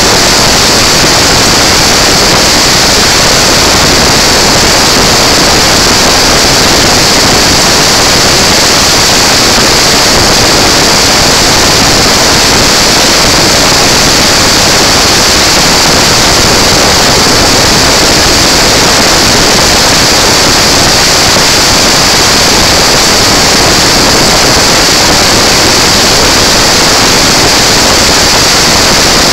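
Clone-class go-kart at speed, heard from an onboard camera: a loud, steady rush of wind and engine noise that overloads the microphone, with no distinct engine note standing out.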